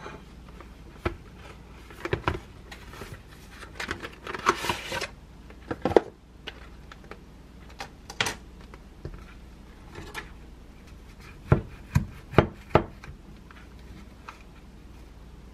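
Handling sounds of food packaging and tableware: a glass plate set down on the table, a plastic bag rustling for a couple of seconds as a plastic cake tub is unwrapped, and scattered clicks and knocks of the plastic tub and a knife, with four sharper taps near the end.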